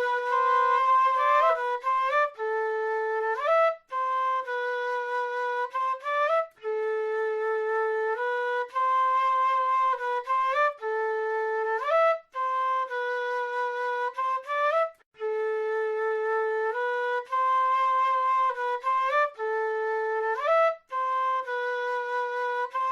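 Solo South American flute playing a slow melody of held notes with short upward slides between them, broken into phrases by brief pauses every few seconds.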